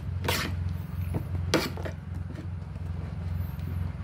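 A utensil working through wet cucumber slices on a plate: three short, sharp, crisp sounds, the loudest about one and a half seconds in, over a steady low hum.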